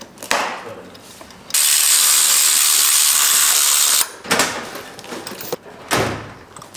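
A ratchet and socket running spark plugs into a Toyota 1JZ's cylinder head. There is a steady, loud run of about two and a half seconds, then a few short clicking strokes.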